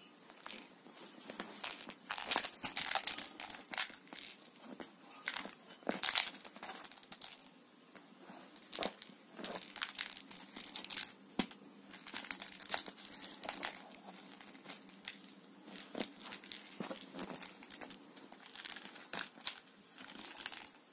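Irregular scratching and rustling of a sofa's woven fabric cover as a cat grapples with a fur toy mouse on it, in short uneven scuffs; the loudest come about two and six seconds in.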